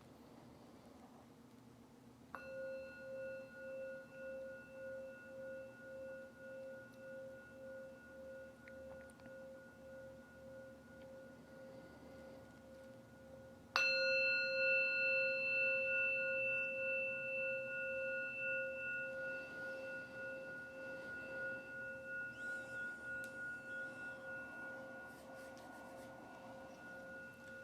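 Meditation bell struck twice, the second stroke louder, each ringing on in a long, wavering decay. The bell marks the end of a sitting meditation.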